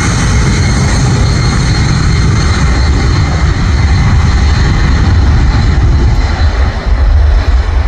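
Boeing C-17A Globemaster III's four Pratt & Whitney F117 turbofan engines running at close range: a loud jet rumble with a high whine that fades over the first few seconds.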